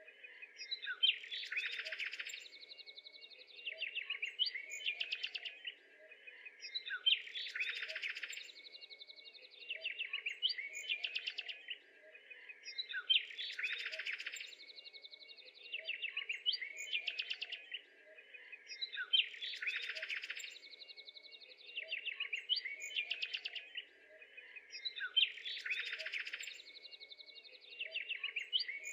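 Small songbirds chirping and twittering. The same sequence of calls comes back almost identically about every six seconds, like a looped birdsong recording.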